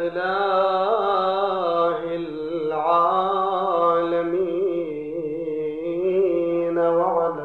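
A man chanting into a microphone, one long ornamented line with the pitch wavering and turning on drawn-out vowels. It is the sung opening blessing on the Prophet that begins a Shia preacher's sermon.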